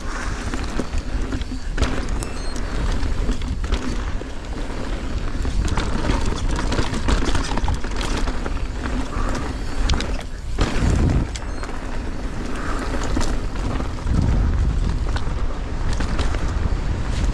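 Wind buffeting the camera microphone of a mountain bike riding downhill, over tyres on a dirt and gravel trail and the rattle and knocks of the bike.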